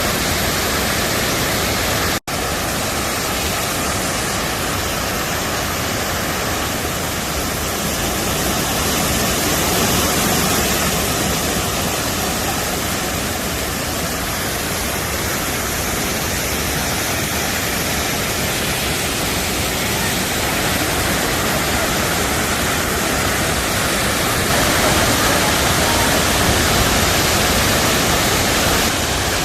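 Waterfall: a loud, steady rush of falling water, broken by a split-second dropout about two seconds in.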